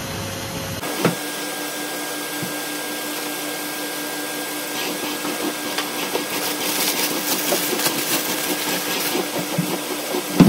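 Steady motor hum with a constant tone, with scattered clicks and clatter from kitchen work over it.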